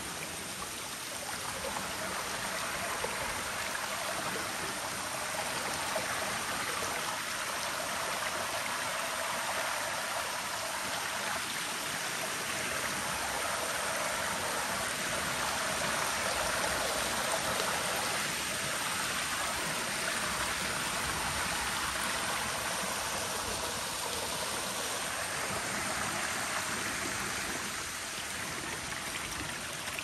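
Steady rush of water from a waterfall and its stream, an even, unbroken sound of water over rock.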